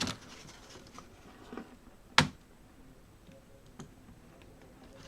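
A few scattered plastic clicks and taps, the loudest about two seconds in, from handling the laptop keyboard as it is lifted off the top cover's melted plastic studs.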